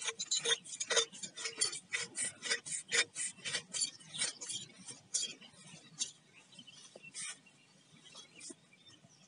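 Threaded galvanised-iron pipe fittings (a GI reducer on a taped nipple) being screwed together, rasping in quick strokes about three or four a second. After about five seconds the strokes slow and thin out.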